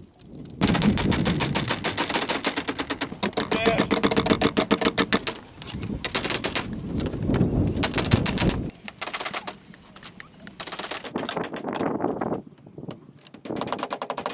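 Rapid runs of sharp knocks from a tool striking bamboo, many blows a second with short breaks between runs, becoming quieter and more scattered near the end.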